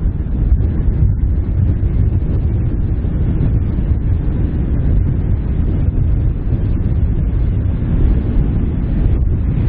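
Steady low rumble of wind buffeting the microphone, mixed with the jet engine noise of a landing Airbus A330.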